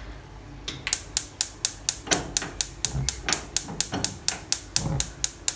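Gas stove's electric spark igniter clicking in a fast, even run, about four to five clicks a second, starting about a second in.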